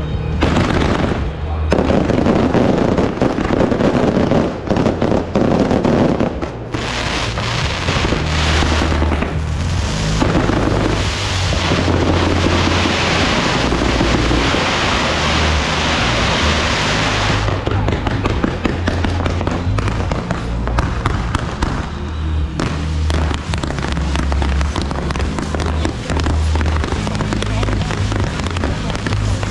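Fireworks and firecrackers going off in a dense, continuous crackle, with a long loud hiss from about ten to seventeen seconds in. A low, pulsing beat of music runs underneath.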